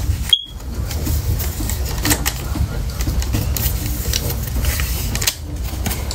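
Irregular plastic clicks and rattles of a smoke and carbon monoxide alarm being pushed and twisted onto its mounting plate, over a steady low rumble. There is a short high blip about half a second in.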